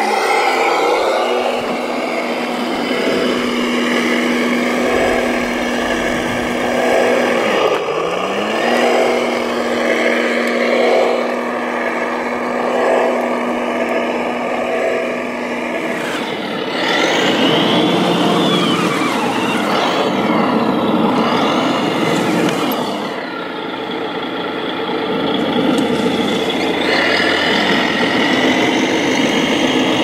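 Radio-controlled model tractor-trailer trucks driving over gravel, their motors running with a whine that rises to a steady pitch as a truck pulls away, about half a second in and again near eight seconds. The sound changes around sixteen seconds as other RC machines work the gravel pile.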